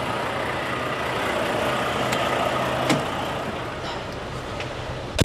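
Diesel semi truck idling steadily, with a sharp click about three seconds in and a louder knock at the end.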